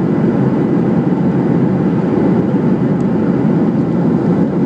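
Steady cabin noise of a Boeing 737 climbing after takeoff: the engines and the airflow make an even drone heard from inside the cabin, strongest in the low range, with a faint steady high tone above it.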